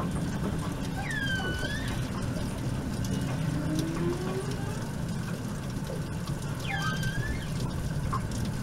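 Humpback whale song heard through a boat's hull. Two high squeals dip and then rise, about a second in and again near seven seconds, and a low moan rises around four seconds in, over a steady low rumble.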